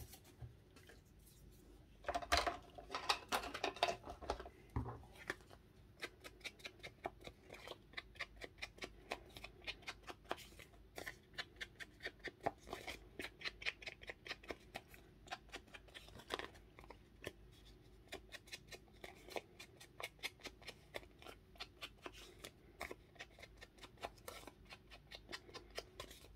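Scissors snipping through paper in a steady run of short, crisp cuts, about three a second, after a louder, busier stretch of cutting and handling about two to five seconds in.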